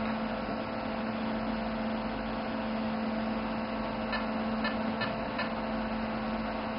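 Steady hum of a diode laser console's cooling fan running, with a few faint clicks from its control-panel buttons about four to five seconds in.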